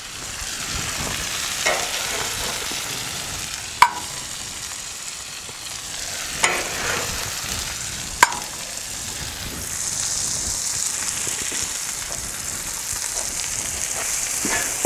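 Smash burgers and buttered buns sizzling steadily on a Blackstone flat-top griddle, with three sharp clicks a couple of seconds apart. The sizzle grows louder and hissier about two-thirds of the way through.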